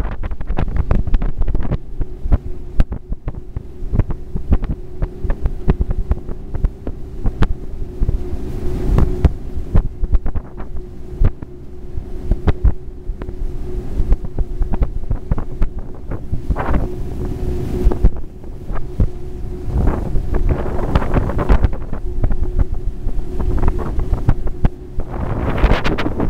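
Boat motor running steadily underway, a constant hum, with wind buffeting the microphone in heavy rumbles and frequent irregular thumps.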